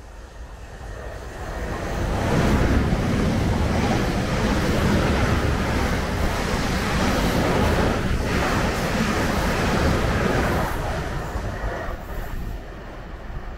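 Passenger train running past the platform on the near track: a rush of wheel and air noise that builds over the first couple of seconds, stays loud, and eases off near the end.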